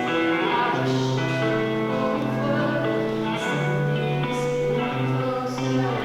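Live music: a slow song with long held notes, a female singer over instrumental accompaniment.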